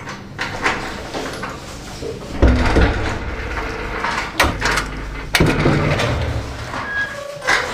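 A heavy front door's lock and handle being worked open: sharp clacks about two and a half, four and a half and five and a half seconds in, the first and last followed by a low thud as the door is pushed.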